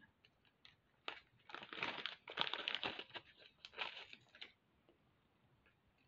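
Small metal rhinestone jewellery clasps being handled and set out on a soft mat: a faint cluster of light clicks, clinks and rustles starting about a second in and dying away after about three and a half seconds.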